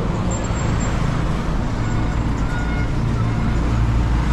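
Heavy truck hauling a shipping container passing on the road, its diesel engine running with a low, steady rumble that grows louder in the second half.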